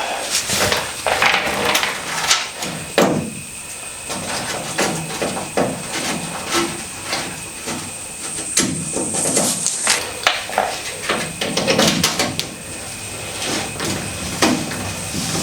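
Irregular knocks and clatter of hand tools being worked against car-body panels, over a thin, steady high-pitched tone.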